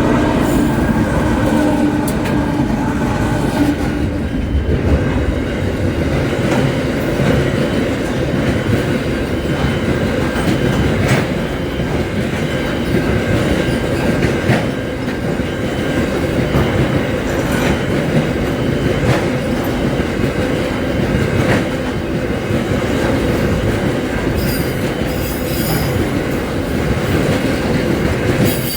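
Long freight train of loaded mineral wagons rolling past, a steady rumble with wheels clicking over rail joints now and then. A pitched locomotive sound fades in the first few seconds.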